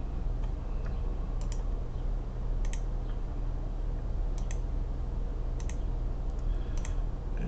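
Computer mouse clicking: five short sharp clicks, most of them doubled, spaced about a second apart, over a steady low electrical hum.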